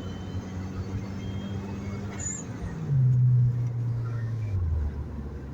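Turbocharged Mitsubishi 4G63T four-cylinder engine droning steadily, heard from inside the moving car. Its pitch drops in two steps, about three seconds in and again near the end, as the revs fall. It gets louder at the first drop.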